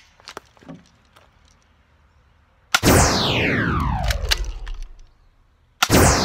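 Two identical loud shot sound effects about three seconds apart, each a sudden blast with a low rumble and a falling whine that fades over about two seconds, laid over airsoft gun shots. A few light clicks of gun handling come before them.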